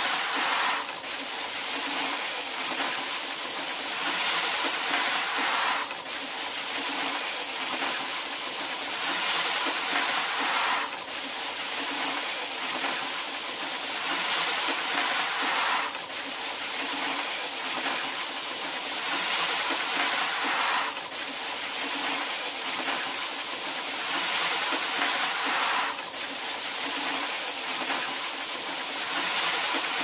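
Coins pouring and clinking in a dense, continuous cascade. The sound is a loop that repeats about every five seconds.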